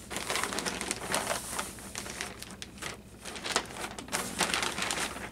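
Packaging of a mail package crinkling and rustling in irregular crackles as hands open it and dig through its contents.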